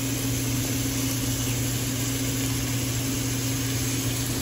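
Ground-beef patties and diced onion sizzling steadily in a frying pan, over a constant low hum.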